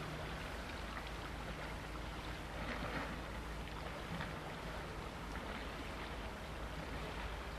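Wind and choppy water at the shore: a steady low rumble of wind on the microphone under an even hiss of small waves.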